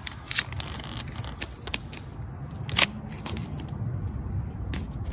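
Irregular small clicks, rustles and scrapes of hands working on small parts or materials, with one sharp louder click nearly three seconds in.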